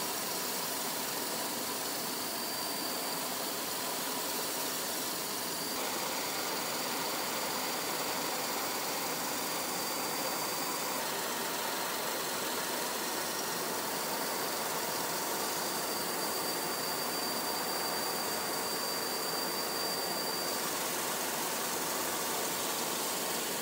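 Steady rushing noise of an aircraft in flight, with a faint high whine, shifting slightly at each change of shot.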